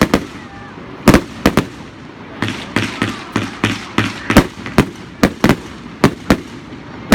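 Fireworks display going off: about twenty sharp bangs in fast, irregular succession, several in quick pairs.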